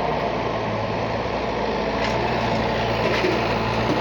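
Excavator's diesel engine running steadily with an even low hum.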